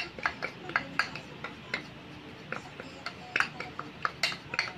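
A metal spoon tapping and scraping against a small plastic cup, knocking onion powder out into a mixing bowl. It makes a run of sharp, irregular clicks, two or three a second, with a short lull about halfway through.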